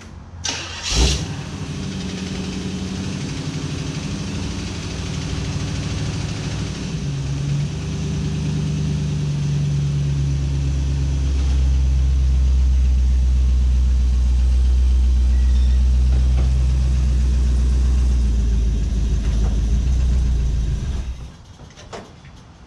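Small-block Chevy V8 in a 1946 Ford convertible starting about a second in, then running at low revs as the car is driven slowly out of the garage, growing louder as it comes out. It is shut off suddenly near the end.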